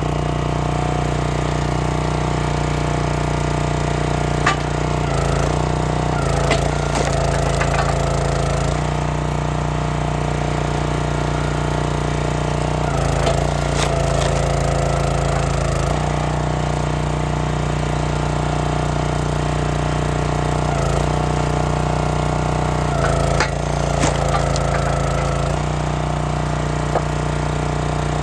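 Small gas engine of a log splitter running steadily, its note dipping and changing several times under load, as cherry rounds crack and split apart with a few sharp snaps of wood.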